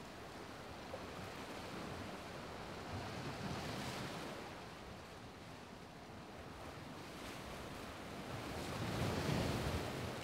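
Small waves washing on open water: a steady wash that swells twice, about three to four seconds in and again near the end.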